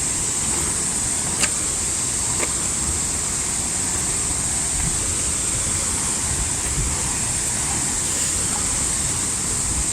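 Powerful waterfall roaring steadily up close, an even rushing noise with deep rumble and a bright hiss.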